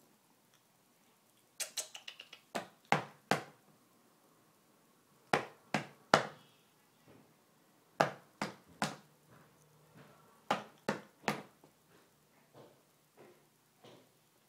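Sharp knocks in groups of three, a group every two to three seconds, with a few fainter taps near the end.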